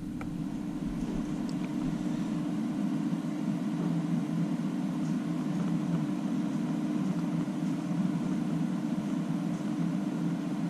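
Cooling fans of a newly booted gaming PC running as a steady low whir, growing slightly louder over the first few seconds, with a couple of faint clicks near the start.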